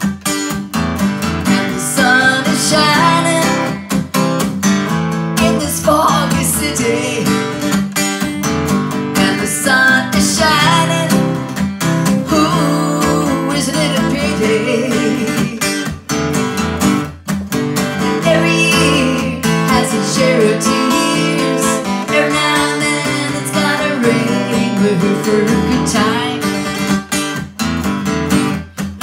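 Acoustic guitar strummed steadily in a country-rock rhythm, with a neck-rack harmonica playing the melody over it in an instrumental break.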